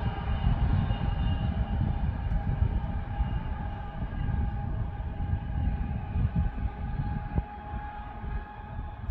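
Freightliner Class 66 diesel locomotive and its freight train running along the line: a steady low rumble with a constant whine of several pitched tones above it.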